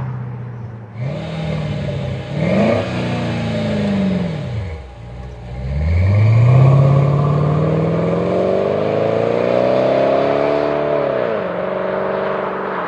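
Dodge Durango R/T's 5.7-litre Hemi V8 through a Flowmaster Force II cat-back exhaust with dual mufflers, accelerating away. The engine note rises and falls, dropping low about five seconds in. It then climbs in one long pull and eases off near the end.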